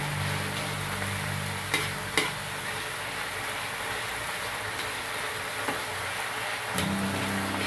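Chopped onion, garlic and tomato sizzling in hot oil in a metal wok, stirred and scraped with a metal spatula, with a few sharp clinks of the spatula against the pan about two seconds in and again near the end.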